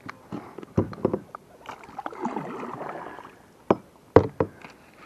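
Sharp knocks and clicks from a baitcasting rod and reel being handled aboard a kayak, coming in small clusters about a second in and again near the end.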